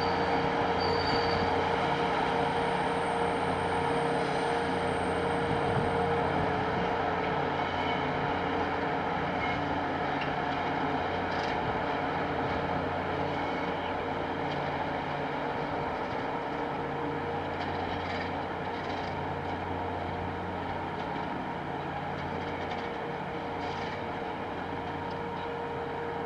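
Diesel engines of a Network Rail C2103 rail grinding train running with a steady drone as the train pulls slowly away, the sound fading gradually.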